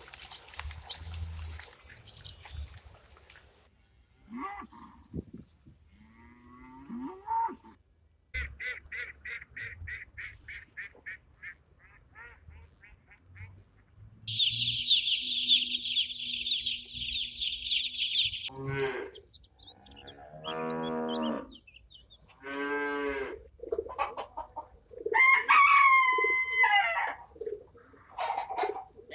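A series of farm-animal calls, one short clip after another with pauses between: mostly chickens and other fowl clucking and crowing, with cattle-like mooing among them.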